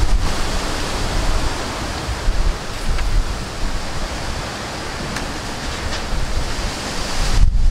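Chicken skewers sizzling over a charcoal fire, a steady hiss as juices drip onto the coals, with wind rumbling on the microphone.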